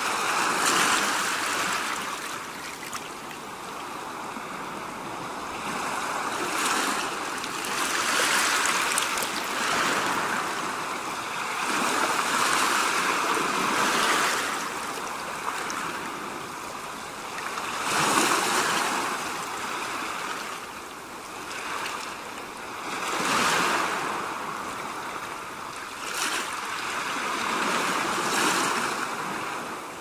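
Ocean surf: waves breaking and washing up the shore, the rush swelling and falling back about every four to six seconds.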